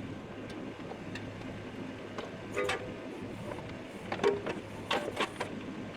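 Kubota KX71-3S mini excavator's diesel engine idling steadily, with sharp metal clanks about halfway through and several more near the end as the quick-connect bucket is worked onto the coupler.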